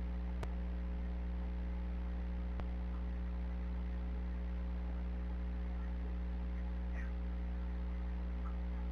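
Steady electrical mains hum with a few faint clicks and, near the end, a couple of faint chirps.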